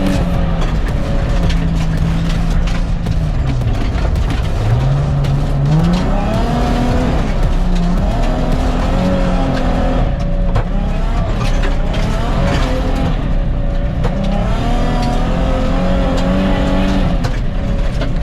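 Nissan 350Z's 3.5-litre V6 engine being driven hard, its revs holding high, falling away about three seconds in and climbing again, over a steady rush of tyre and gravel noise.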